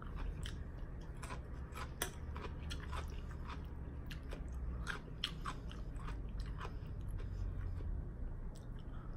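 Close-miked chewing of crisp raw cucumber: a steady run of wet, crunchy crackles that thins out near the end.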